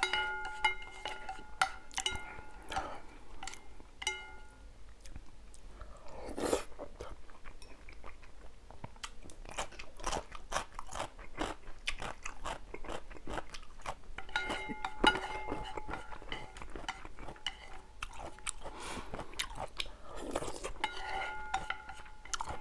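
A person chewing and biting food close to the microphone, with many short crunching and wet mouth clicks. A faint pitched tone comes and goes in short spurts underneath.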